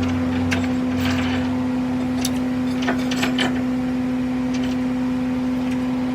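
Steady mechanical hum at one even pitch, with a few light clicks and knocks on top.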